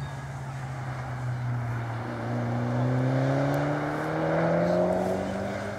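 Mitsubishi Lancer Evolution VI's turbocharged 2.0-litre four-cylinder engine on a sprint run. The note drops as the car slows for a corner, then climbs steadily as it accelerates away, growing louder.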